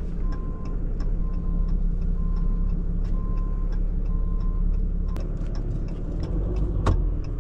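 Indicator flasher ticking steadily in the cab of a moving pickup truck, about one and a half cycles a second, over the low, steady running of the engine. A single sharp knock comes near the end.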